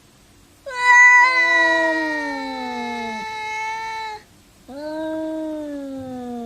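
A cat meowing twice in long, drawn-out calls, each sliding down in pitch. The first call is loudest at its start.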